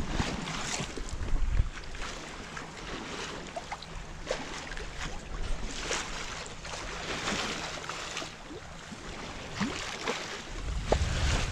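Water rushing and splashing along a sailboat's hull as it sails, with wind buffeting the microphone, the wind rumble strongest near the end.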